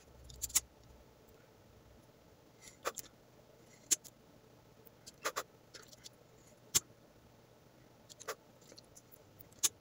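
Hand-held lighter being struck and handled: about seven sharp clicks a second or two apart, several in quick pairs, over faint room tone.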